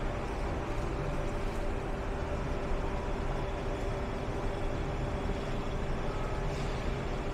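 Steady city street traffic: a constant rumble of vehicle engines and tyres with a steady engine hum under it.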